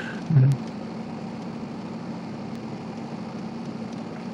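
Steady room hum from running machinery, with a constant low tone over a soft even noise. It is broken only by a brief low vocal murmur about half a second in.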